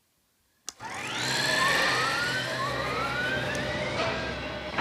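A click, then a model's sound-effect unit plays a turret-turning effect: a steady low hum under whining tones that rise in pitch again and again.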